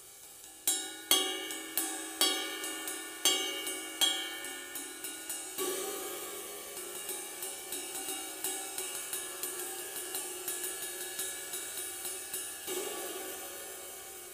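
Paiste sizzle cymbal, its rivets buzzing in the wash, struck with a wooden drumstick. It starts with a handful of separate hits, each left to ring. From about six seconds in comes a quicker, steady pattern of strokes, and near the end one stronger hit is left to ring and fade.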